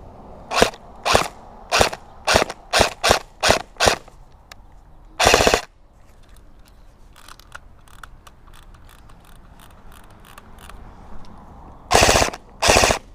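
Airsoft electric gun, an H&K 416 replica running on an 11.1 V battery, test-firing. About eight single shots come roughly half a second apart, then a short full-auto burst about five seconds in, and two more short bursts near the end.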